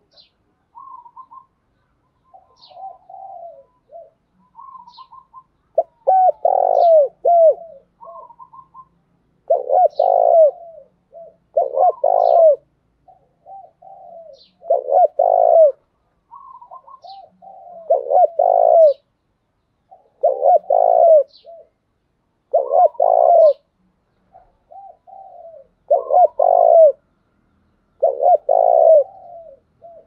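Spotted dove cooing over and over: about ten loud coo phrases, one every two to three seconds, with shorter, softer coos between them. This is the challenging 'thúc' call of a decoy dove, used to provoke wild doves into answering.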